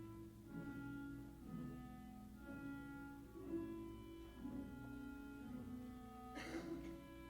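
Symphony orchestra playing sustained, slow-moving string phrases with cellos prominent, in a live concert recording. A short breathy noise cuts across the music a little over six seconds in.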